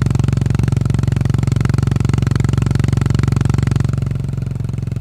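Yamaha SR400's single-cylinder four-stroke engine running steadily through a Goods tapered-cone slip-on muffler, a fast even train of exhaust pulses. About four seconds in, the exhaust note softens.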